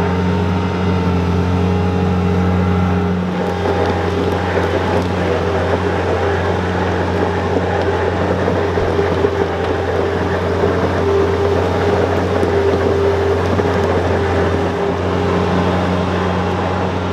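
Bobcat 642B skid-steer loader's engine running steadily under load as it drags a heavy wooden shack on a chain, with a rough scraping noise of the shack's base sliding over gravel that sets in a few seconds in.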